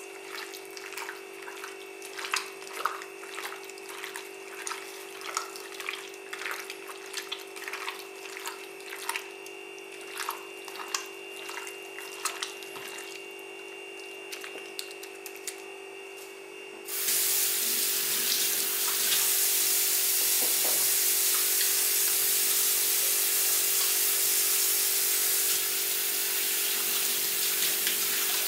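Hands squeezing and mixing cubed meat in marinade in a bowl: irregular wet squelches, several a second, over a steady hum. About two-thirds of the way through, a kitchen tap is turned on and water runs steadily and loudly.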